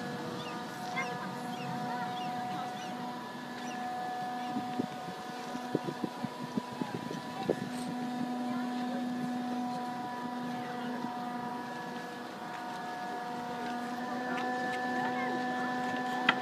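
A boat engine running at a steady hum, with a run of sharp knocks about a third of the way in and short high chirps throughout.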